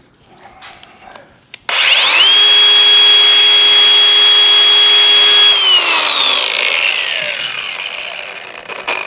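High-speed power tool switched on, spinning up quickly to a steady high whine, running for about four seconds, then released and winding down with a falling pitch as it coasts to a stop.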